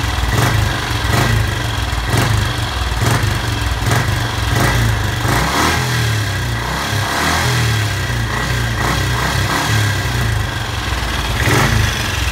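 Freshly rebuilt BSA single-cylinder motorcycle engine running at a fast idle and being revved, with repeated throttle blips over its steady low exhaust note.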